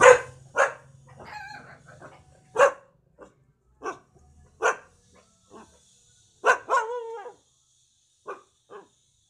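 Puppy barking at a stranger out of fear: about a dozen short, sharp barks at uneven intervals, with wavering whines between them and a longer drawn-out whining bark about seven seconds in.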